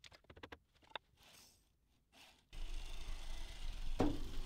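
A few faint small clicks, then steady low workshop background noise that starts abruptly, with one light knock about four seconds in as a hand handles a magnetic-base dial indicator on the steel linear rail.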